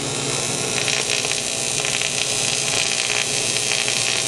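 TIG welding arc on an aluminium billet-runner intake manifold: a steady hiss with a faint electrical hum beneath it.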